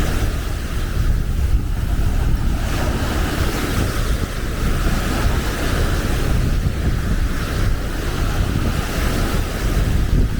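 Wind buffeting the microphone with a heavy gusty rumble, over the steady wash of small Baltic Sea waves breaking on the beach.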